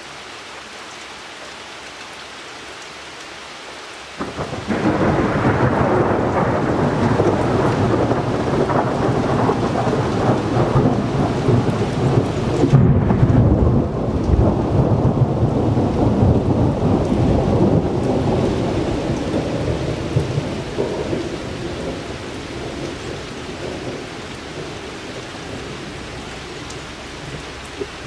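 A thunderclap: a loud rolling rumble breaks in suddenly about four seconds in, crackles and swells through the middle, then slowly dies away over a steady background hiss.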